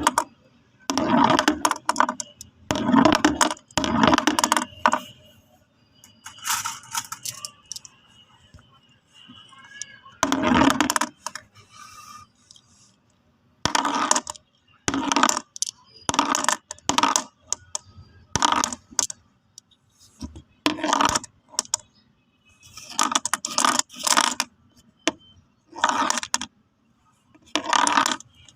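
Marbles clicking and clattering against one another in a series of short bursts, with brief pauses between them.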